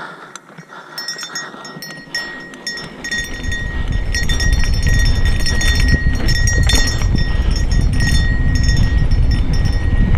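Mountain bike rolling fast down a dry dirt trail: the bike rattles and clicks over the rough ground while the tyres run on dirt. About three seconds in, a loud low rumble of wind on the camera's microphone sets in and stays to the end.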